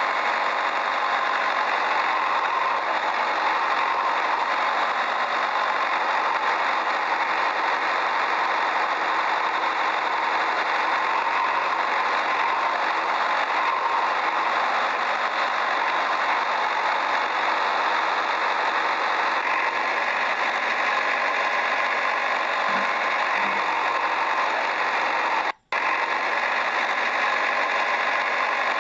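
A motor running steadily, with a rattle. The sound drops out for an instant about 25 seconds in.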